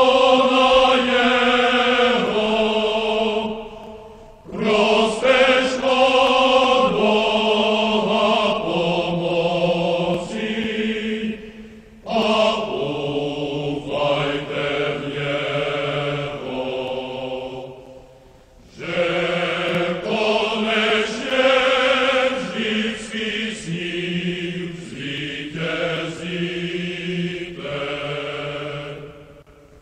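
A choir singing, several voices holding notes together in long phrases with short breaks between them.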